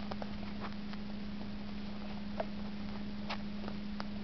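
A steady low hum, with a few faint, sharp clicks from fingers handling a thumbtack at a vinyl doll's ear.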